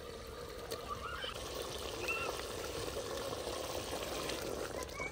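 Tomato, ginger and garlic masala bubbling and sizzling in a handi, a steady wet bubbling: the masala has been fried until it has begun to release its oil.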